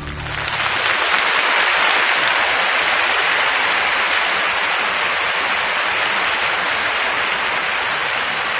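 Large arena crowd applauding at the end of a figure skating program. The clapping swells within the first second and then holds steady.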